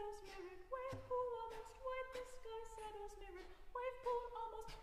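Soprano singing a slow melodic line, accompanied by trumpet air sounds: short unpitched breathy puffs and hisses shaped with consonants (f, k, s, t) blown through the horn with no tone, about one every two-thirds of a second.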